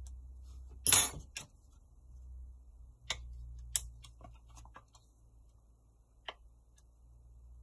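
Sharp clicks and snaps from the clips of a Huawei Y5 2019's back cover as it is pried open with a thin tool. A loud crackling snap comes about a second in, then a scattered few lighter clicks, over a low steady hum.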